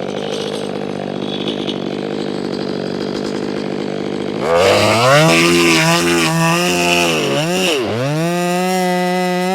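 Stihl 500i fuel-injected two-stroke chainsaw idling, then throttled up to full revs about four and a half seconds in as the next cut begins. Its engine speed wavers and dips sharply once near the end before climbing back up.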